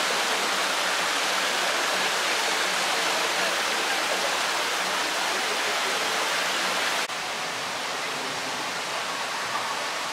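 Steady rush of running water, dropping slightly in level about seven seconds in.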